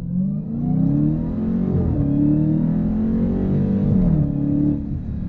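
Supercharged 6.2-litre HEMI V8 of a 2020 Dodge Challenger Hellcat Widebody at full throttle in a 0-60 mph run, limited to 500 horsepower. Its pitch climbs with revs and drops back at upshifts, about two seconds in and again a little after four seconds.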